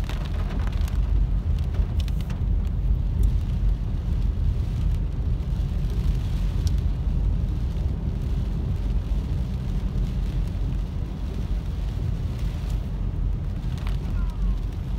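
Steady road noise inside a car driving through heavy rain: a low rumble of engine and tyres on a wet road, with rain on the car and a few faint ticks.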